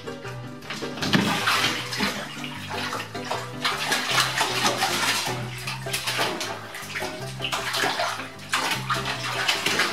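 Bathwater splashing as a cat goes into a filled bathtub about a second in, then keeps churning the water in rapid splashes while it paddles and reaches for the rim to climb out.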